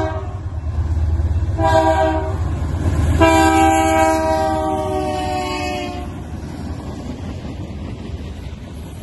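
Diesel freight locomotive horn sounding the end of a grade-crossing signal: a long blast trailing off, a short blast about two seconds in, then a long blast from about three to six seconds in whose pitch falls as the lead GE C44-9W passes. Under it the diesel engines run, then the freight cars roll past on the rails.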